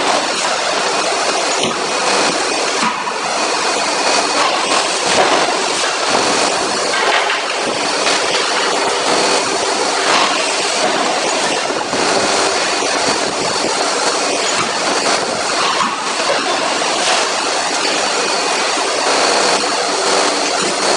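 Steady, loud machinery noise of a forging shop around a CNC forging hammer, with a few faint knocks and no heavy hammer blows.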